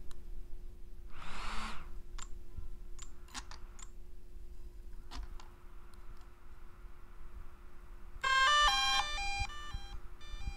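DJI Mavic Air 2 drone powering up: a few light clicks, then about eight seconds in its start-up tune, quick electronic beeps stepping through several notes for about two seconds, with a few short beeps near the end.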